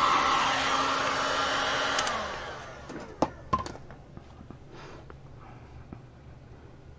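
Heat gun blowing hot air over wet epoxy resin to pop its air bubbles, running steadily with a hum and whine, then switched off about two seconds in and winding down. A couple of sharp knocks follow about a second later.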